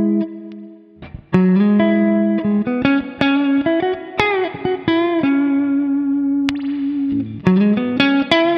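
Clean electric guitar, a Fender Stratocaster through the Axe-Fx III's Dumble ODS-100 clean amp model with its bright switch on, playing a slow, bluesy phrase. A ringing chord is cut off just after the start, then after a short pause come chords and single notes, a string bend about four seconds in, a long note held with vibrato, and more chords near the end.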